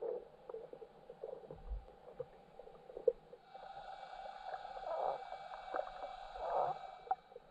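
Underwater lake ambience picked up by a submerged camera: faint water noise with scattered small clicks and crackles. A fainter higher hiss comes in about halfway through and fades near the end.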